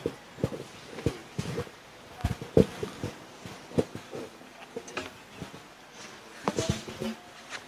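Microphone handling noise: irregular soft bumps and knocks, the loudest about two and a half seconds in and a short cluster near the end.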